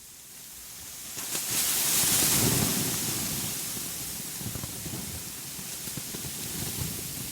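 Steady rain-like hiss with fine patter fading in from silence, with a low rumble like distant thunder swelling about two seconds in and slowly dying away.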